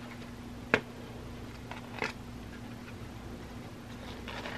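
Light handling sounds of a dull hobby knife working a cut piece of bare metal foil off its paper backing sheet: a sharp click about a second in, a softer one about two seconds in, and a little rustle near the end, over a low steady hum.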